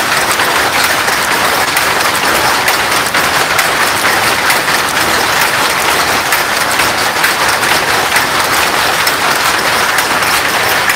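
Weaving looms in a cotton lungi factory running together: a loud, dense, continuous clatter, called tremendous noise.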